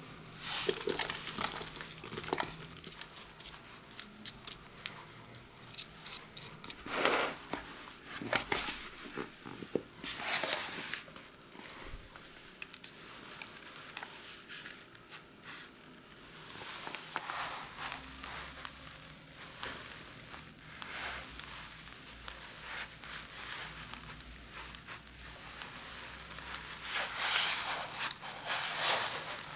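Intermittent crinkling and rustling of a plastic bag as streusel crumbs are shaken out of it onto the cake, with further rustling handling noises. It comes in irregular bursts, loudest about seven to eleven seconds in and again near the end.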